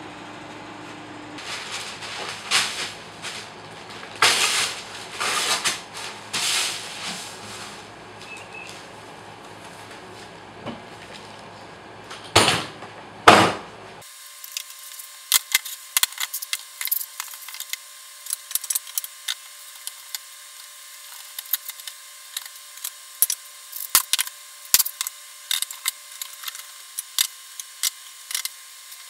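Wooden boards handled on a workbench: a few rustling, scraping passes, then two loud knocks about twelve and thirteen seconds in. After that, many short irregular clicks and knocks as bar clamps are set and tightened across a glue-up of the boards.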